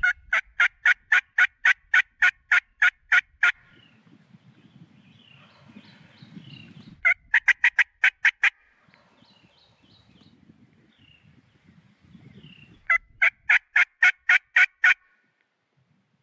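Diaphragm turkey mouth call worked close up, giving hen yelps in three series of sharp, evenly spaced notes, about four to five a second, with pauses between: locator calling to draw a gobble from a tom.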